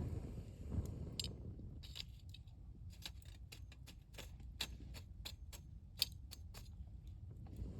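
Wood bonfire crackling, with an irregular scatter of sharp snaps and pops, the loudest about six seconds in, over a steady low rumble.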